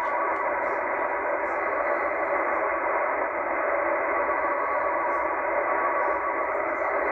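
Steady static hiss from a Tecsun H-501X shortwave receiver in upper-sideband mode, tuned to an idle utility frequency with no signal present. The noise fills the narrow sideband passband, with a few faint steady tones in it.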